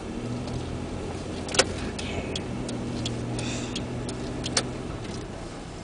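Car engine running with a steady low hum, heard from inside the cabin while driving slowly in traffic. A few sharp ticks cut through it, the loudest about one and a half and four and a half seconds in.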